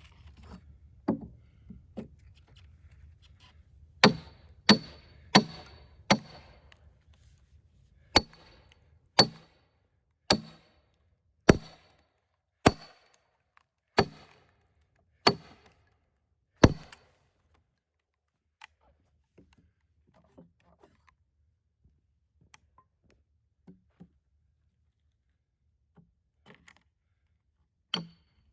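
Steel splitting wedges being driven into a cedar log with a hammer: sharp ringing metal-on-metal strikes, a group of four, then about eight at a steady pace of one a second. After that only faint knocks and ticks.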